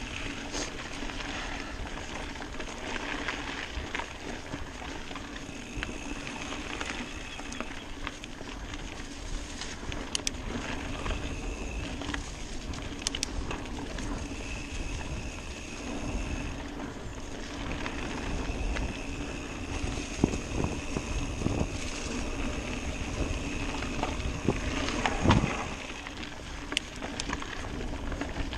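Mountain bike rolling along a dirt singletrack: tyre noise and the bike rattling, with wind on the microphone and a few sharp knocks, the loudest near the end.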